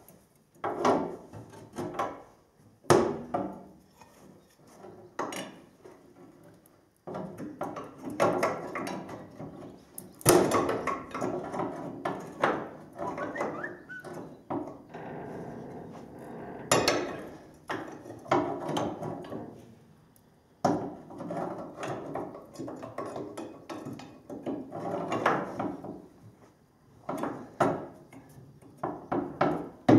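Hand tools working on the Schumacher header drive of a New Holland 1540S combine: irregular knocks and clanks of tools against bolts and pulleys, with scraping and rattling in between.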